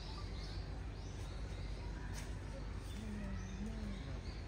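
Outdoor ambience: small birds chirping now and then over a steady low background rumble, with a faint distant voice about three seconds in.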